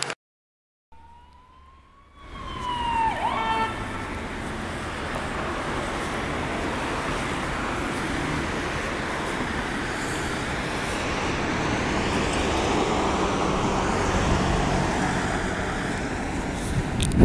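Emergency vehicles, an ambulance and a police car, passing with sirens running. A siren wail rises and falls near the start, then a loud, steady rush of engine and road noise takes over, with the sirens sweeping faintly above it.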